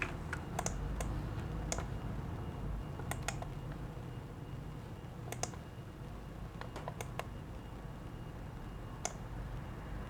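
Scattered, irregular clicks of a computer mouse and keyboard, some in quick pairs or threes, over a low steady hum.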